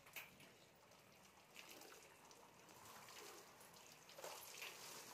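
Near silence: faint background hiss with a few scattered soft clicks.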